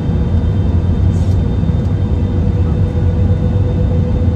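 Steady low rumble of an Airbus A320-200 airliner heard inside the passenger cabin, with a faint steady hum above it.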